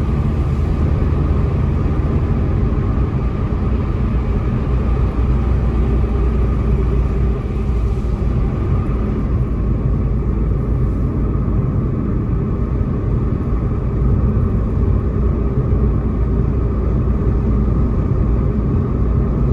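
Steady low rumble of a car driving: engine and road noise from the tyres, with no sudden events.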